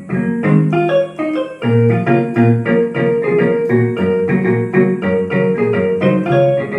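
Casio CT-X9000IN keyboard played on its Jazz Guitar 1 voice: a run of quick plucked guitar-like notes and chords over low bass notes.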